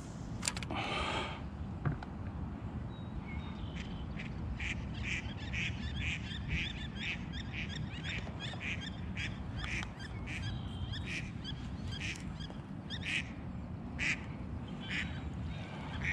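Ducks quacking: a long run of short calls, two or three a second, starting a few seconds in and stopping near the end.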